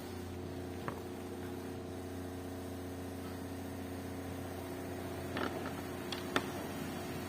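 Samsung inverter washing machine running with a steady mechanical hum after its fill-valve coil was replaced, with a few light clicks or knocks, the loudest near the end.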